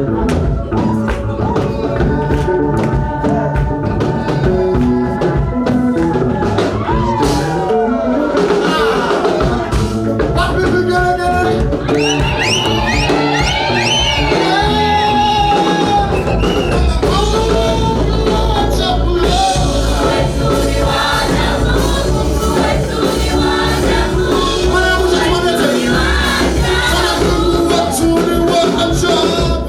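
Gospel praise music: a choir and congregation singing with a band, with sharp percussion strokes in the first half. A heavy bass line comes in a little past halfway, and high voices slide upward shortly before it.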